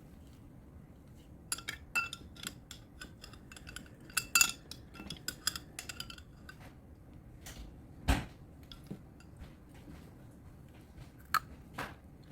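Dishes and utensils clinking and clattering, with a quick run of ringing clinks in the first half and a dull thump about eight seconds in.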